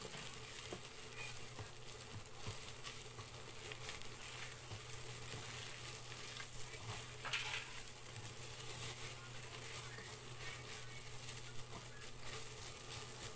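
Stuffed-pepper filling with rice sizzling in a nonstick pan while a spatula stirs and scrapes through it, with a steady hiss and many small ticks of the spatula.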